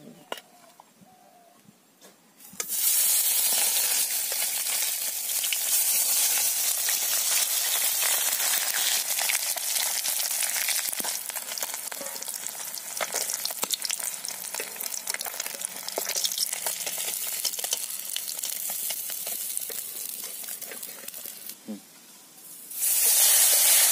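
Small spice-coated fish frying in hot oil in a kadai, a loud sizzle full of spattering crackles. It starts suddenly about two and a half seconds in, dies down briefly near the end, then comes back loud as a fresh batch of fish goes into the oil.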